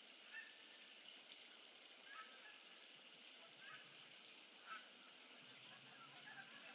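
Faint bird calls, short and spaced a second or two apart, growing more frequent near the end, over a steady background hiss.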